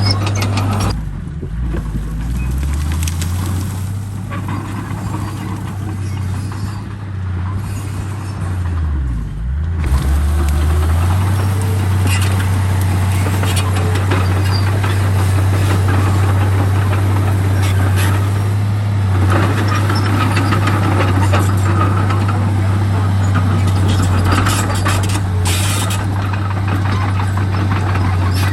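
Komatsu D31P crawler bulldozer's diesel engine working under load. Its note sinks lower about a second in, then climbs back up about ten seconds in and holds steady, with scattered clanks throughout.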